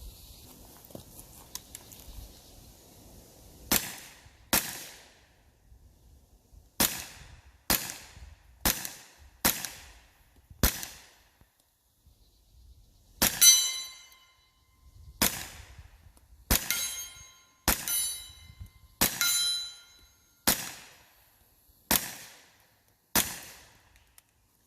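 A series of about fifteen 9mm gunshots, fired roughly one a second with a short pause midway. Several shots are followed by the ringing clang of a struck steel target.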